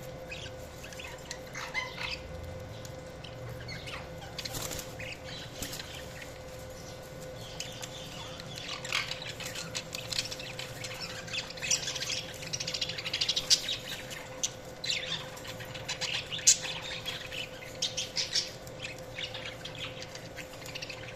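Budgerigars chirping and warbling: a few scattered chirps at first, then a busier stretch of quick, overlapping chirps from about eight seconds in.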